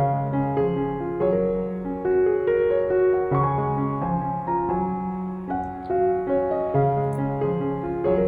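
Background piano music: a melody of held notes over a low accompaniment, changing about every half second.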